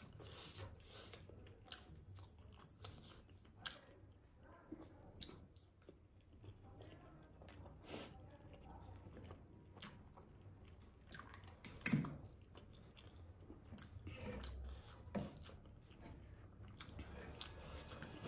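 Chewing and biting of steamed momo dumplings, with scattered sharp clicks of a metal fork against the plate and sauce bowl.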